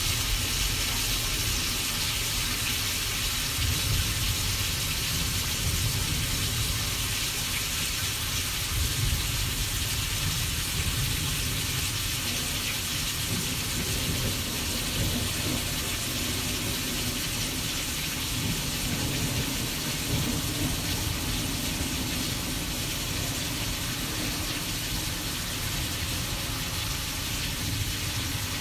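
Simulated thunderstorm: a steady rain-like hiss over a low, uneven rumble, with no distinct thunderclaps.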